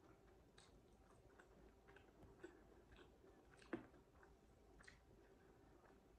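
Faint sounds of someone chewing food, with scattered soft clicks and one sharper click a little past halfway.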